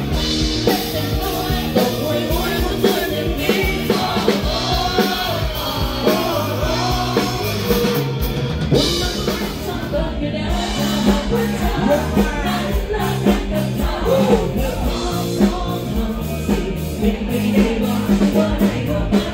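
Live band playing a Thai pop-rock song through a PA: a singer over drum kit and electric guitar, steady and loud throughout.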